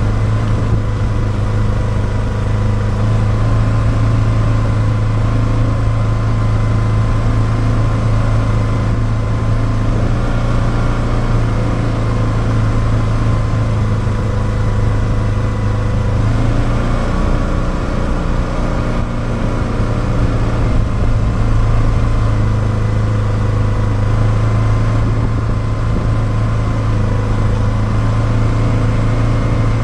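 Polaris 570's single-cylinder engine running steadily while the machine is ridden along, a constant engine drone whose note wavers briefly a little past halfway.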